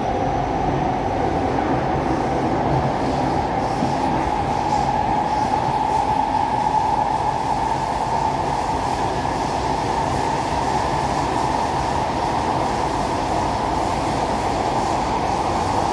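SMRT C151A metro train running between stations, heard from inside the carriage: steady wheel and rail noise with a whine just under 1 kHz that edges slightly up in pitch over the first several seconds.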